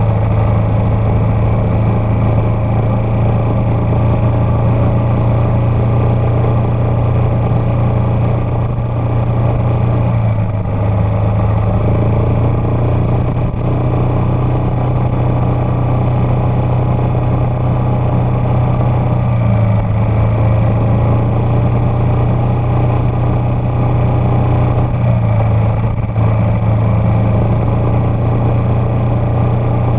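Yamaha X-Max 250 scooter's single-cylinder four-stroke engine running while riding at low city speed, picked up close by the bike's camera. The steady engine note shifts slightly in pitch a few times as the throttle changes.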